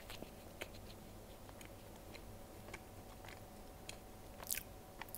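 A person biting into and chewing a soft, dry sponge-cake snack (a banana pancake sandwich), faint wet mouth clicks throughout, with a short run of louder clicks about four and a half seconds in.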